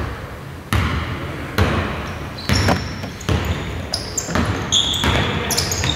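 A basketball being dribbled on an indoor court, bouncing about once a second and echoing in the hall. Short high squeaks of sneakers on the floor join in from about four seconds in.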